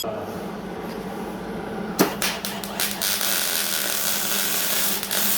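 A power tool running steadily while cutting exhaust pipe, with a sharp knock about two seconds in.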